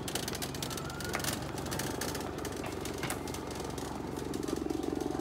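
An engine running steadily with a fast, even pulsing rattle, growing a little louder near the end.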